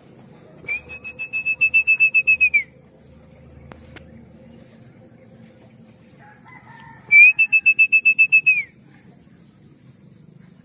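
A whistle blown in two long trilling blasts, each about two seconds, holding one high pitch and dropping at the end. This is the kind of whistle a pigeon flier uses to call racing pigeons in.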